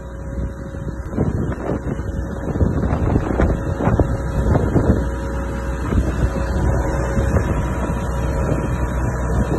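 An engine running steadily at idle, with a constant hum behind gusts of wind buffeting the microphone.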